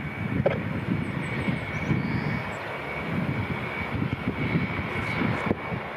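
Lockheed CC-130J Hercules' four Rolls-Royce AE 2100 turboprops running with the aircraft standing on the ramp. A steady rumble with a thin, constant high whine over it.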